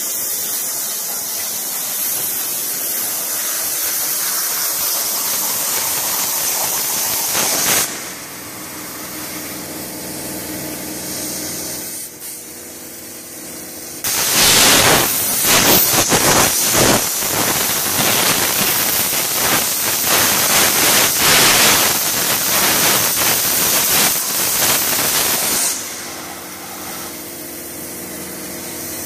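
Hypertherm MAXPRO200 plasma torch cutting steel plate: a steady hiss that drops to a quieter hiss about 8 s in. Just past the middle a louder, rougher hiss starts as the torch cuts again, throwing sparks, and it falls back to a quieter hiss near the end.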